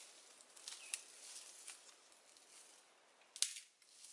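Footsteps rustling and crackling through dry leaves and undergrowth, with one sharp snap about three and a half seconds in.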